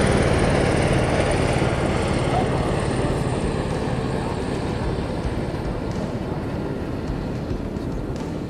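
Steady engine noise of an aircraft passing overhead, slowly fading as it goes.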